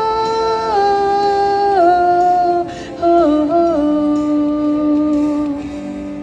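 A woman's voice humming a slow, wordless melody in long held notes that step down in pitch, with a short break for breath about three seconds in.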